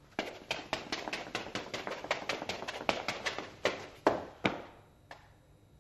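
A fast run of sharp knocks, about five a second, thinning to a few spaced knocks near the end.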